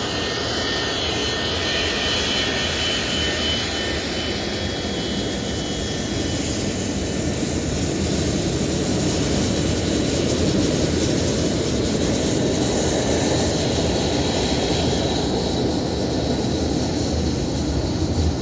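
Boeing 737-200's Pratt & Whitney JT8D jet engines running at taxi power as the airliner rolls past and turns away: a steady jet rumble, with a high whine that fades over the first few seconds.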